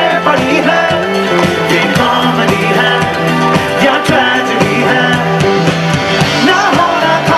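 Live band playing loud amplified music, with singing over drums, heard from within the concert crowd.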